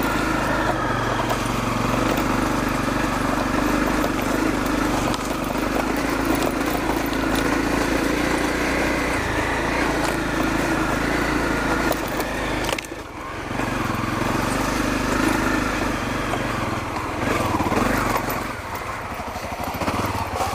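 Honda CRF250L single-cylinder four-stroke dirt bike engine running under way on an off-road trail. The throttle drops off briefly about two-thirds of the way in, and the engine turns over slowly at low revs near the end.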